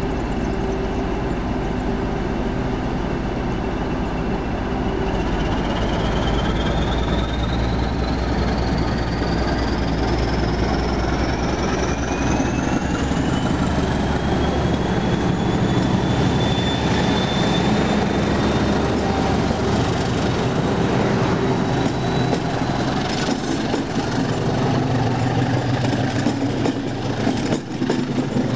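English Electric CP 1400-class diesel locomotive pulling a passenger train away, its engine running steadily under load, with a high whine that rises in pitch over several seconds. Near the end the coaches roll past, their wheels clicking over the rail joints.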